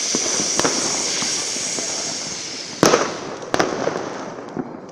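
Fireworks going off: a steady high hiss with crackling as the firework burns, fading after about two seconds, then two sharp bangs about three seconds in, with a few smaller cracks.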